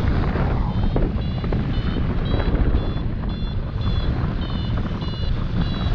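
Wind buffeting the microphone in flight, with a paragliding variometer beeping in short high tones about two or three times a second from about a second in. The steady beeping is the variometer's signal that the glider is climbing.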